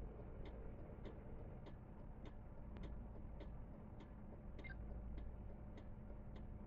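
Faint, steady ticking a little under twice a second, typical of a patrol car's flasher relay, over the low hum of the idling car.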